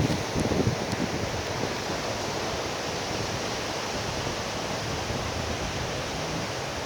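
Sea surf and wind, a steady even rush of noise, with a few low thumps in the first second.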